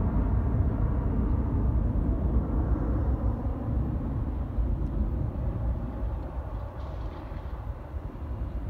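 Embraer 175 regional jet climbing away after takeoff, its twin GE CF34-8E turbofans a low rumble that fades steadily as the jet recedes.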